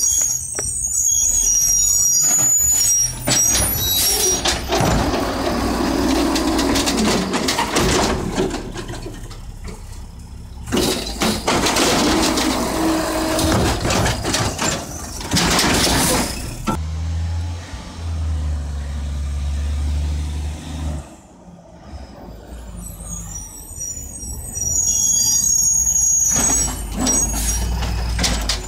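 Mack LE garbage truck with an Amrep automated side-loader body working a curbside pickup. Its air brakes hiss, its diesel engine runs, and its hydraulic arm lifts and empties a wheeled trash cart in loud, noisy stretches. A steady deep engine drone comes a little after halfway.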